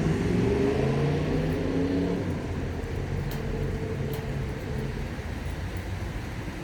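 A car accelerating past, its engine note rising over the first second or so, then holding and fading away over the next few seconds.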